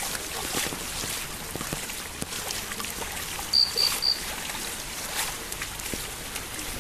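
Lake water overflowing and pouring across a road, a steady rush of water. Three short high beeps come a little past halfway.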